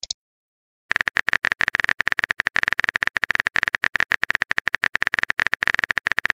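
Phone keyboard typing sound effect: a fast, steady stream of short clicks, one per letter, starting about a second in.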